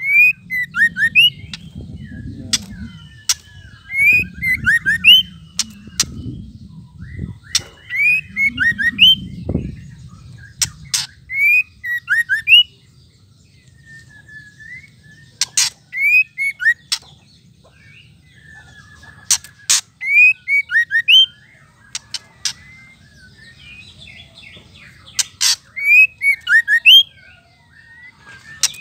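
White-rumped shama calling in short bursts every couple of seconds: sharp dry clicks mixed with quick high chirped notes, the 'ketrekan' clicking call of a female shama.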